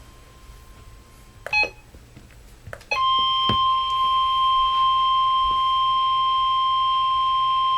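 NOAA Weather Radio alert for a Required Weekly Test: a short electronic beep, then a loud, steady, high electronic tone that starts about three seconds in and holds unbroken.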